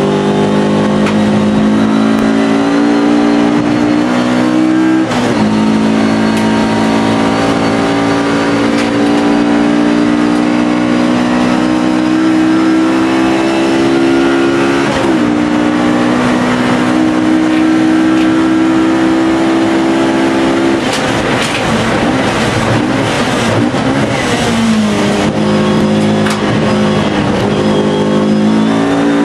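Alfa Romeo race car engine running hard under load, its pitch climbing steadily through the gears, with sudden drops at upshifts about 5 and 15 seconds in. From about 21 to 25 seconds the pitch wavers and breaks up as the car slows for a corner, then it climbs again as the car accelerates away.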